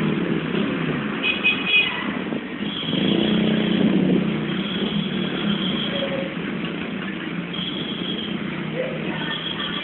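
Busy road traffic: cars and motorcycles passing with engines running, and several brief high-pitched tones over the steady noise.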